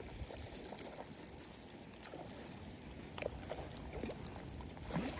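Hooked trout splashing at the surface several times as it is reeled toward the landing net, the last splash the loudest, over the steady whirr of a spinning reel being cranked.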